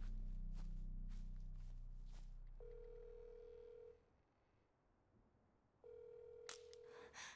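Mobile phone ringing tone heard in the earpiece: a steady beep sounding twice, each about a second and a half long, as the call rings out unanswered. Before it, a low drone with a few soft clicks fades away over the first few seconds.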